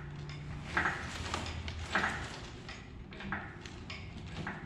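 Hydraulic engine hoist being pumped by hand to lift an engine, the pump handle clanking once with each stroke, about once every second or so, over a low steady hum.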